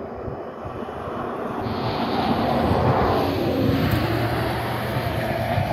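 A motor's drone that grows steadily louder over the first few seconds and then holds, as an engine approaches.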